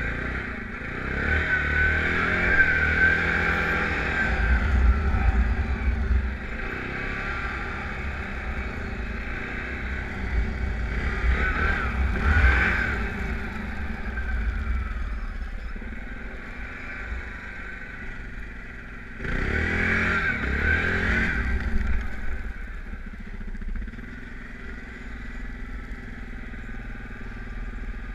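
Yamaha Grizzly ATV engine running under way. It revs up twice, briefly about twelve seconds in and louder for a couple of seconds around twenty seconds in, then settles back.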